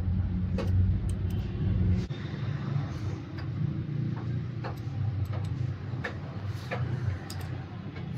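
Light clicks and taps of small metal parts being handled as a diesel injection pump is reassembled, over a steady low hum whose deepest part drops away about two seconds in.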